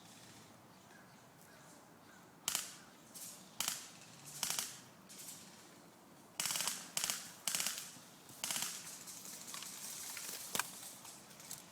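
Airsoft guns firing in short bursts and single shots, about nine sharp cracks at irregular intervals, starting a couple of seconds in.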